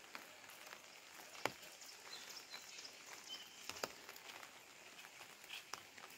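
Faint light rain, a soft even hiss with scattered sharp ticks of single drops.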